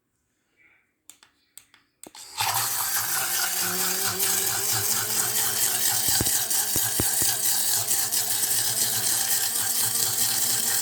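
A few clicks, then about two seconds in a small rechargeable portable blender's motor starts and runs steadily, whirring water in its 380 ml jar with the lid left off.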